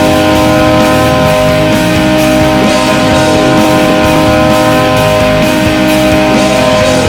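Arena goal horn (Airchime KMJ-234) blowing one long steady chord, with a hard-rock goal song with electric guitar playing loudly over it. The horn and the song together signal a home-team goal.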